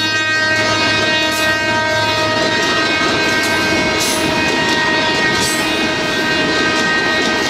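Passenger coaches rolling past close at speed, a steady rumble of steel wheels on rail with three sharp clacks over rail joints. Under it runs a steady whining tone made of several pitches at once.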